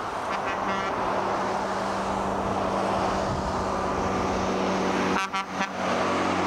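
Vintage heavy-haul semi-trucks passing on a highway: steady engine drone over tyre and road noise. The sound drops out briefly about five seconds in.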